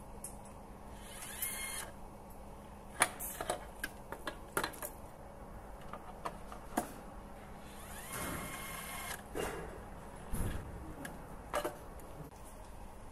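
Assembly work on an electric drive unit: scattered clicks and knocks of parts and tools being handled, with two brief whirs of a power tool, one about a second in and one about eight seconds in, over a faint steady hum.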